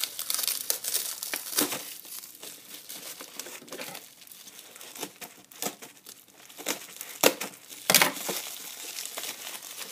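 Plastic bubble wrap crinkling and crackling as it is pulled and torn off a cardboard box, in irregular bursts with a couple of sharper, louder crackles near the end.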